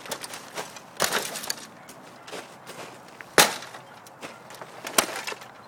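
Tool wedged in to pry a stubborn part out of a printer: scattered clicks and knocks, a cluster about a second in, a sharp loud knock about three and a half seconds in and another near the end.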